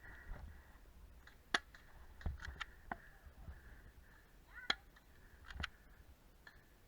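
Airsoft guns firing: a handful of sharp, separate pops and clicks spread over several seconds, two close together a little after the second mark and another pair later on.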